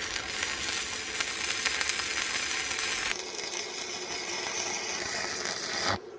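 A power tool abrading the axe with a steady grinding noise that starts and stops abruptly. Its tone drops somewhat, losing some of its brightness, about three seconds in.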